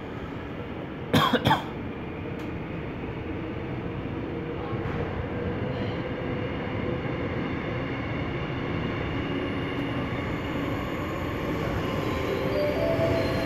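Seoul Metro Line 9 train's running noise heard from inside a car in a tunnel: a steady rumble of wheels on rail that grows gradually louder. About a second in, a short loud burst of three sharp sounds stands out above it.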